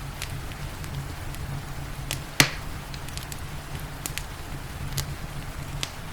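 Wood fire crackling, with scattered small pops and one sharp, louder pop about two and a half seconds in, over a steady low rumble of the flames and a soft hiss of rain.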